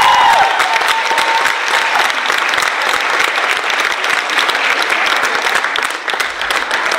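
Crowd applauding, a dense patter of many hands clapping. A held tone fades out in the first second and a half.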